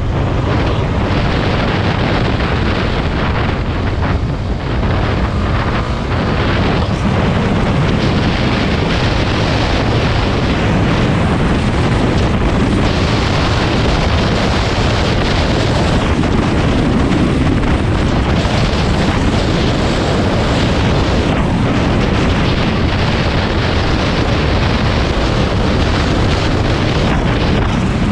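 Wind rushing over the microphone, with a Honda dirt bike's engine running underneath as it is ridden at a steady pace along a dirt road.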